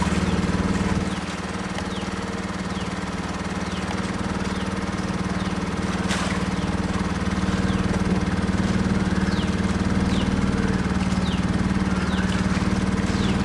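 A boat's engine running steadily with a low, even hum; it eases off slightly about a second in and gradually builds back up.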